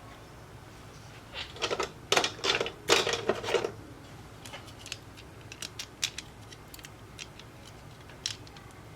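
Small clicks and scrapes of hand tools and parts on an Apple Watch being worked on at a repair bench. A busy flurry comes about one and a half to three and a half seconds in, followed by scattered light ticks.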